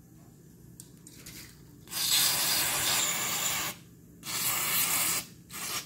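Aerosol contact cleaner sprayed through its straw nozzle onto the reel's body to clean it, in three hissing bursts: a long one starting about two seconds in, a shorter one, and a brief one near the end.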